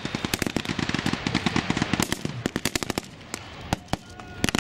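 Rapid small-arms gunfire: many overlapping shots for about three seconds, then thinning to scattered single shots.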